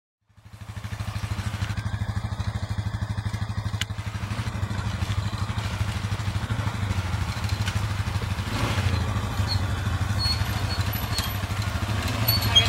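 ATV engines running steadily at low speed, a low, evenly pulsing engine note that comes in within the first second and grows a little louder in the second half.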